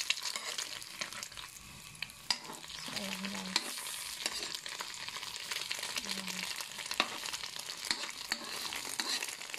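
Egg sizzling as it fries in oil in a wok, with a spatula scraping against the pan and clicking on it a few times.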